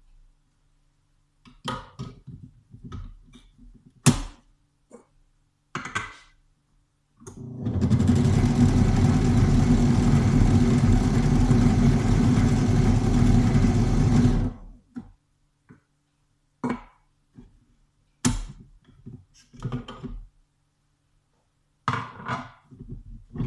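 Thermomix TM21 motor running steadily for about seven seconds, stirring the mixture in its bowl, with scattered knocks and clicks of kitchen handling before and after.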